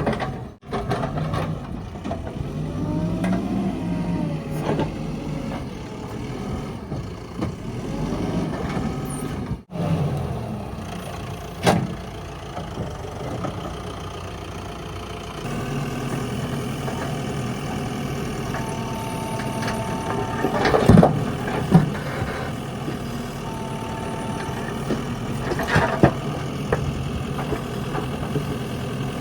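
Backhoe loader's diesel engine running and revving up and down as it works, with a few sharp metallic knocks and a short recurring high whine.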